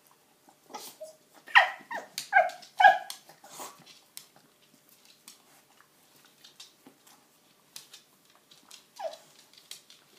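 A Cockermops dog (cocker spaniel–pug cross) giving a quick run of about five short calls, each sliding down in pitch, then one more near the end.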